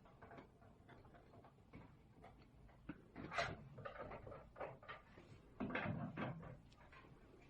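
Irregular clicks, scrapes and knocks of hand tools and small parts being handled while the screws on the machine's lid are tightened. The knocks are louder in short clusters about three seconds in and again near six seconds in.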